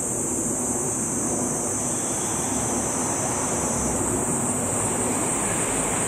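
Cicadas singing in a steady, high-pitched, unbroken drone, over a steady low rushing background noise.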